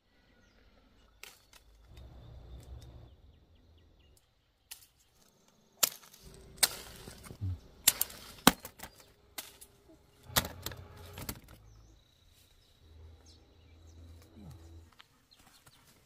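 Oranges being picked by hand from a tree: leaves and branches rustling, with a series of sharp snaps and clicks, the loudest between about six and eleven seconds in.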